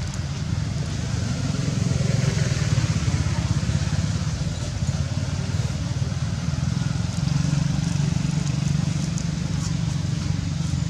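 Steady low rumble of a running motor vehicle engine, swelling a little about two seconds in and again near seven seconds.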